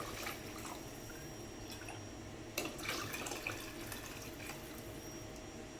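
Chicken broth trickling and dripping into a pot of stir-fried vegetables as the pour ends, with a few light clicks about two and a half to three and a half seconds in.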